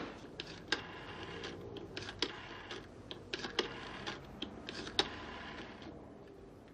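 Rotary telephone being dialled: the dial is wound and let go several times, ticking as it spins back, with a louder click about every second and a half.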